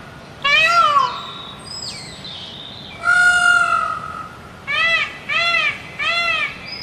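Animal calls: one rising-and-falling call about half a second in, a longer level call about three seconds in, then four short rising-and-falling calls in quick succession near the end.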